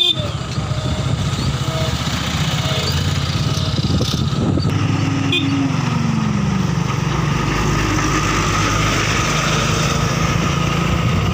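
Heavy diesel engine running steadily, with a short falling whine about five seconds in.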